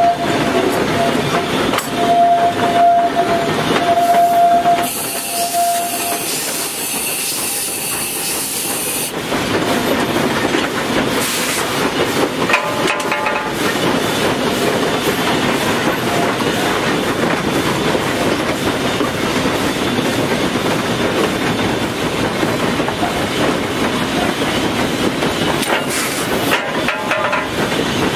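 Cab of Tweetsie Railroad No. 12, a narrow-gauge 4-6-0 steam locomotive, on the move: the steam whistle holds one steady note for a few seconds near the start and fades out about six seconds in. A loud steam hiss follows for several seconds, then the steady clattering run of the locomotive and train.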